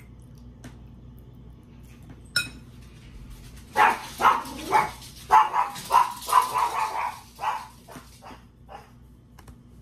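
A person coughing about ten times in quick succession into a paper napkin held over the mouth, in short, loud bursts. Before it, a single sharp clink as a metal fork is set down in a glass bowl.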